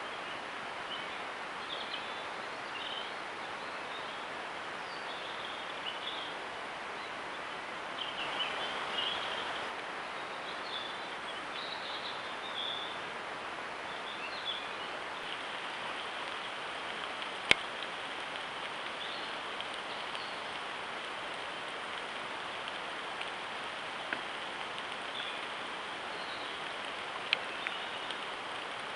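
Steady hiss from a trail camera's microphone on a mountainside, with faint, brief bird chirps scattered through the first half and a sharp click about 17 seconds in.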